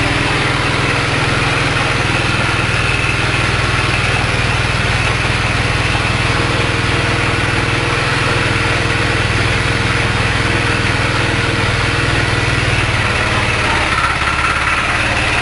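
Small 5.5 hp petrol engine running steadily, driving a horizontal screw-type pellet mill as it extrudes fish-feed pellets.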